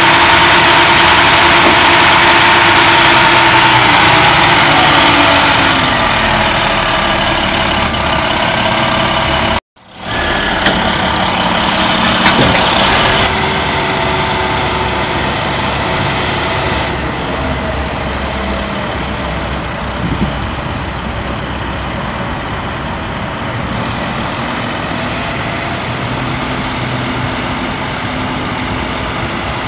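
The Maxxforce 10 diesel engine of an International 7500 crane truck running steadily while driving the crane's hydraulics, with a steady whine that slides down in pitch about five seconds in. The sound cuts out for a moment about ten seconds in, then the engine runs on steadily.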